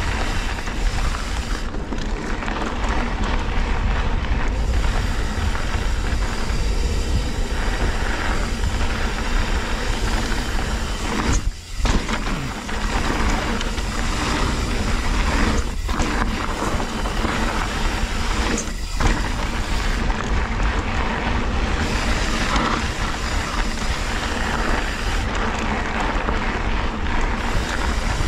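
Wind rushing over the microphone and mountain bike tyres rolling over a dirt trail: a steady rush with a deep rumble, dipping briefly about twelve seconds in.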